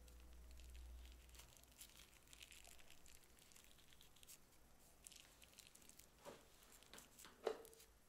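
Faint crinkling and crackling of a thin plastic piping bag as it is squeezed and peeled away from thick slime, with two short sticky squelches near the end, the second one the loudest.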